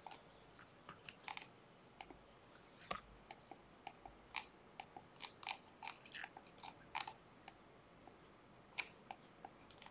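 Faint, irregular clicking of a computer mouse, some clicks coming in quick pairs or short runs.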